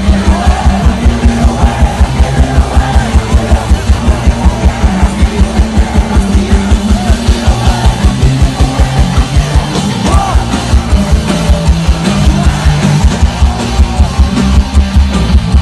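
Live rock band playing loud at a festival, heard from within the crowd: a fast, steady drum beat of about four to five hits a second under guitars and yelled vocals.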